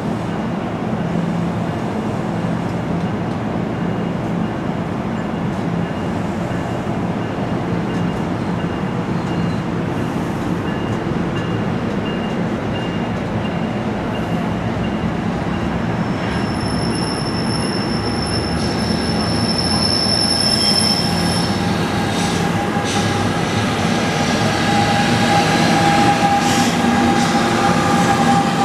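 NJ Transit multilevel commuter train pulling out of the station: steady wheel and rail rumble from the rolling coaches, growing louder toward the end as the ALP-46A electric locomotive pushing at the rear draws level. A high thin squeal holds for a few seconds past the middle, and a whine from the locomotive rises in the last few seconds.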